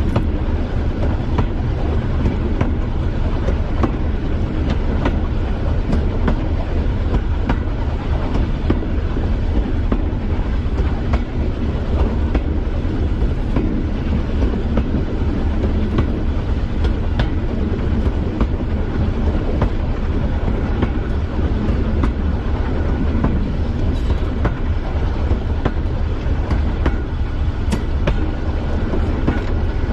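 Class 205 'Thumper' diesel-electric multiple unit under way, its English Electric four-cylinder diesel engine giving a steady heavy drone, with wheels clicking over rail joints.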